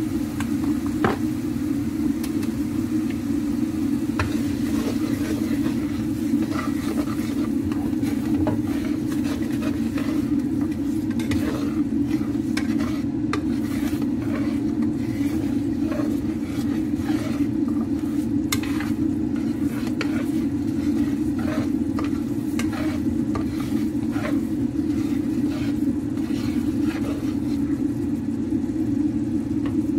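Wooden spatula stirring and scraping curry sauce in a frying pan on the stove, with scattered clicks and taps that grow more frequent from a few seconds in, over a steady low hum.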